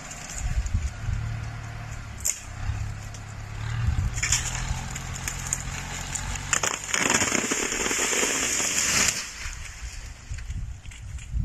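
A tractor engine runs steadily at a distance while a cable pulls on a tree. About seven seconds in, the tree gives way: a loud crackling crash of snapping branches and tearing wood for about two seconds as it is pulled over and dragged across the ground.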